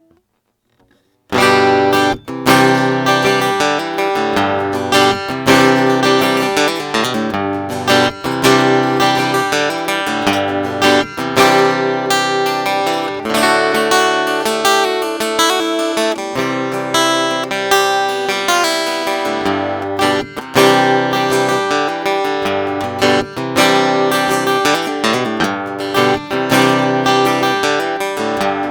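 Urban Player dreadnought acoustic-electric guitar played plugged in, its sound picked up by its piezo pickup and preamp, strumming and picking chords. The playing starts about a second in.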